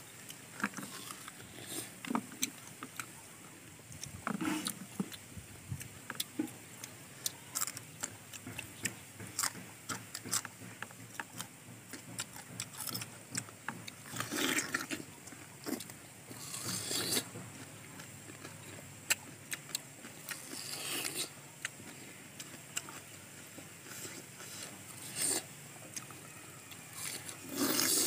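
Close-up eating sounds: crisp bites and chewing of juicy star fruit and raw green chillies, with irregular clicks and short crunchy bursts.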